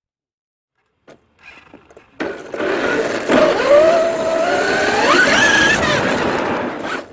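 Carson Dirt Attack 1:6 electric RC car's motor whining over a steady rushing noise, starting about two seconds in. The whine rises in pitch in steps as the car speeds up, then it stops abruptly near the end.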